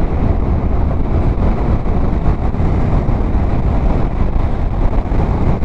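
Motorcycle riding at road speed: a steady rumble of engine and road noise mixed with wind noise on the microphone.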